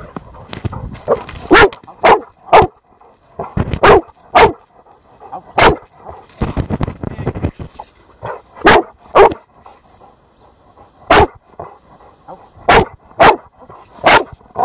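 Search-and-rescue dog barking repeatedly at close range, about a dozen loud barks, often in quick pairs, with short pauses between them. It is the dog's bark alert on a hidden person it has found.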